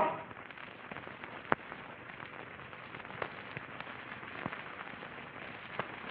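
Faint hiss with scattered clicks and pops, the surface noise of an old black-and-white film soundtrack; one sharper pop about a second and a half in.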